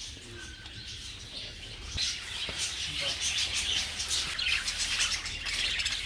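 A flock of caged budgerigars chattering, a dense stream of quick high chirps that grows louder about two seconds in.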